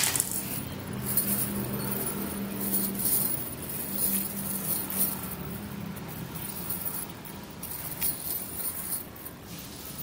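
Chainmail rings jingling and clinking against one another in short spells as the mail sheet is handled.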